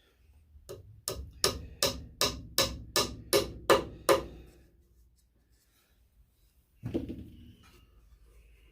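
A hammer striking wood in a quick steady series of about ten blows, roughly three a second, as if driving a nail home, then one more single blow a few seconds later.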